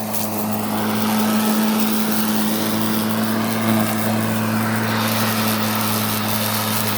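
Greenworks electric lawn mower running and cutting grass: a steady motor hum under the whir of the spinning blade, sounding like a vacuum cleaner, growing a little louder about a second in.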